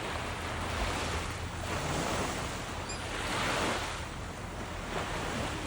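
Ocean surf washing onto the shore, swelling twice in surges, with wind rumbling on the microphone.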